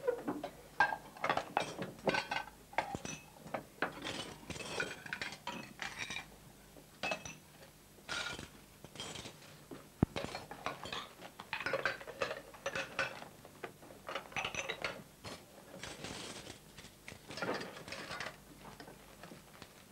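China plates and metal cutlery clinking and knocking together as dishes are stacked and the table is cleared, in a string of short, irregular clatters that die away near the end.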